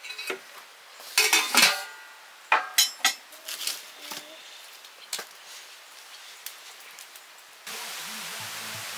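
Metal pots and utensils clinking and clattering, a cluster of ringing knocks in the first three seconds and a few lighter clinks after. Near the end a steady hiss starts abruptly.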